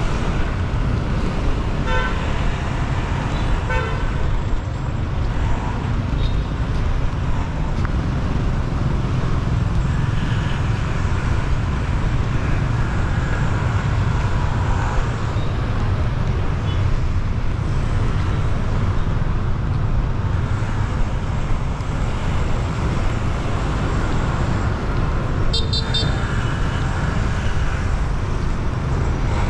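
Steady city street traffic, motorbikes and cars running past, with short horn toots about two and four seconds in and again near the end.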